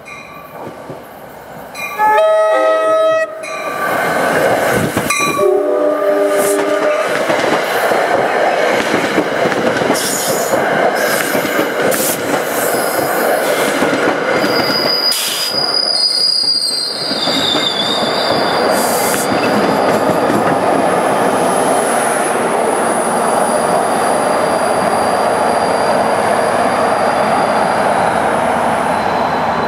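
New Jersey Transit passenger train: a horn blast sounds about two seconds in and a shorter one a few seconds later. The train then passes close by with the steady rumble and clatter of its wheels on the rails, and a thin high wheel squeal comes in about halfway through and again near the end.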